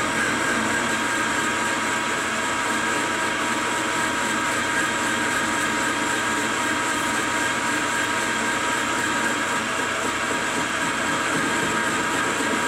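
Enco metal lathe taking a heavy dry roughing cut on a cast aluminium ingot with a carbide tool: a steady mechanical whine over the even hiss of the cut.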